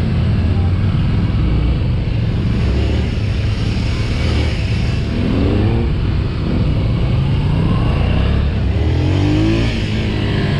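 Motorcycle engine heard from on board while riding a tight cone course, the revs climbing and dropping as the bike accelerates out of turns, with a steady rush of wind. The revs rise noticeably twice, near the middle and toward the end.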